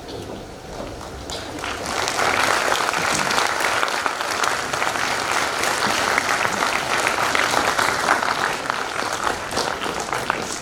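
Audience applauding: many hands clapping together, swelling about two seconds in and dying away near the end.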